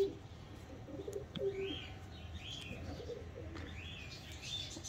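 Domestic pigeons cooing in short, soft low notes, with faint high chirps recurring every second or so.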